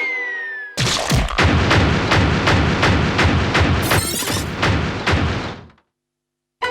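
Cartoon sound effects: a falling whistle tone, then about five seconds of rapid loud bangs like gunfire, roughly four a second, that cut off suddenly.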